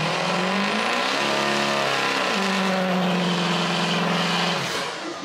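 Pickup truck doing a burnout: the engine is revved hard with the tyres spinning. Its pitch climbs and steps about in the first couple of seconds, holds high and steady, then drops away shortly before the end.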